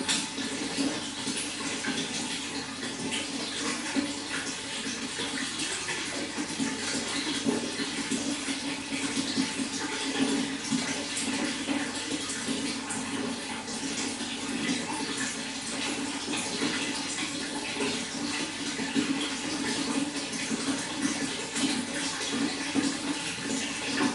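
Running water, a steady continuous rush of flowing, splashing water that never pauses.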